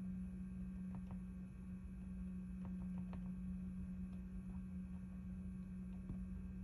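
A steady low hum, with a few faint light ticks of a pointed pick working at the holes of a plastic resin mold.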